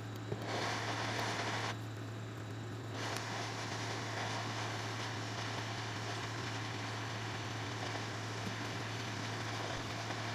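Hot-air rework station blowing a steady hiss of air onto a phone's charging port to melt its solder and lift it off the board; the airflow cuts out briefly about two seconds in, then resumes. A steady low hum runs underneath.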